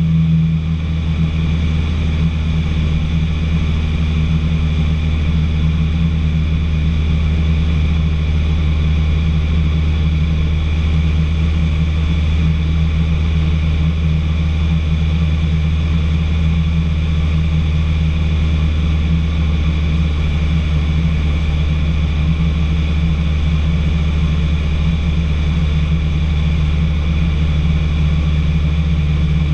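Piston engine and propeller of a single-engine training aeroplane droning steadily in level flight, heard inside the cockpit.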